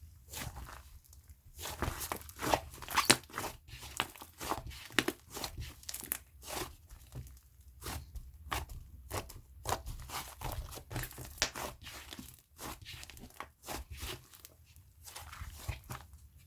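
Fluffy, sticky slime being squished, stretched and pulled apart by hand, giving irregular crackles, pops and tearing sounds.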